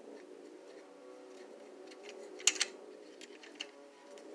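Sharp plastic clicks and light taps from a Marx four-wheel plastic caboose being handled, with a loud pair of clicks about two and a half seconds in. Faint steady background music plays underneath.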